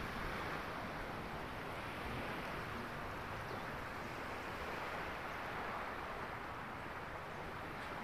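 Gentle sea waves washing onto a sandy beach, a steady rush of surf with some wind.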